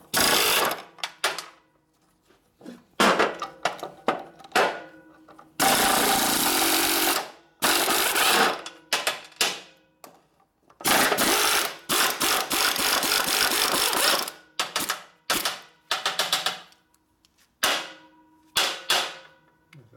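Air impact wrench hammering in bursts as it loosens fasteners on a Harley shovelhead rocker box: two long runs of about two and three and a half seconds near the middle, with shorter blips before, between and after.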